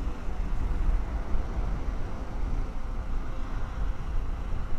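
Surf breaking on a sand beach, a steady wash of waves, with wind buffeting the microphone in an uneven low rumble that is the loudest part.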